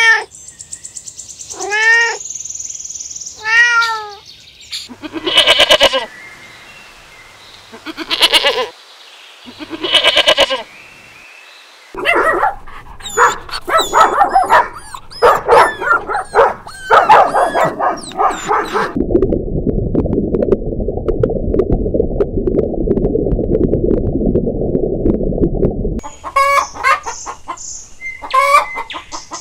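A run of animal calls. Kittens meow three or four times, then come several longer cries and a quick series of yelps. A low rough noise holds steady for about seven seconds and stops suddenly, and a hen clucks near the end.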